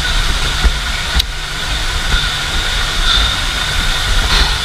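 A motor vehicle engine running steadily, with a deep uneven rumble under a constant hiss and a couple of brief clicks.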